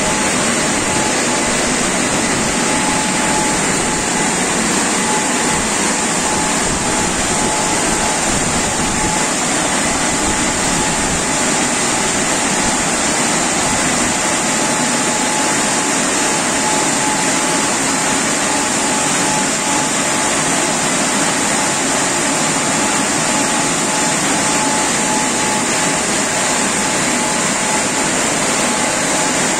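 Automatic rollover car wash running its wash cycle: rotating brushes and the gantry's motors and water spray make a steady whirring hiss, with a thin steady whine throughout.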